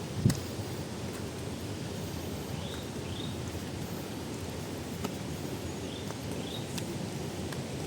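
Steady rushing of a waterfall, with a bird giving short rising chirps, mostly in pairs a half-second apart, twice. A single thump comes just after the start.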